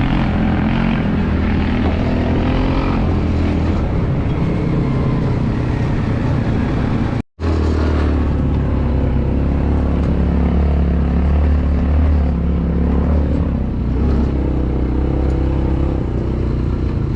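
Off-road vehicle engine running steadily under way, a low drone with road and wind noise over it. It cuts out to silence for a split second about seven seconds in, then carries on.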